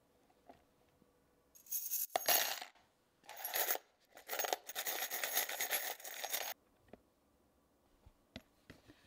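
Hard plastic jar lids and a plastic storage caddy rattling and clattering against each other as they are handled, in three bursts, the last the longest.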